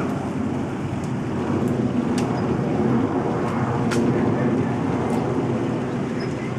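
Steady low background rumble, with a few short sharp clicks or snaps scattered through it.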